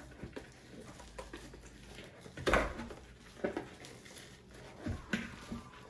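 Slime being mixed and handled by hand, with a few short knocks and sticky handling noises.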